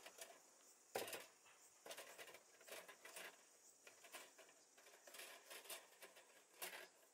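Faint scraping and light clicking of a small metal wire mesh grill being slid onto bamboo skewer rails inside a cardboard box, with a sharper knock about a second in and more scrapes and clicks after it.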